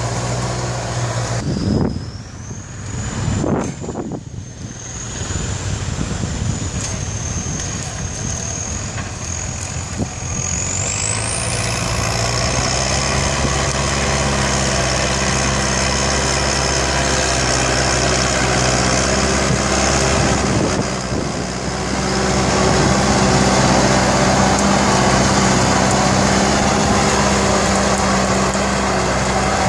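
Kubota tractor's diesel engine running steadily under load while pulling a disc plough through dry soil, growing louder about three quarters of the way in as the tractor comes close.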